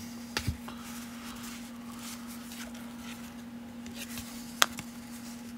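1992 Topps baseball cards being thumbed through one at a time in the hands: soft rustling of card stock with a few light clicks, and one sharper card snap about four and a half seconds in.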